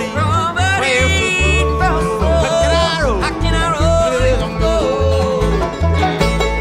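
A bluegrass band playing live: banjo picking over bass notes on the beat, with a lead melody that slides and bends in pitch above them.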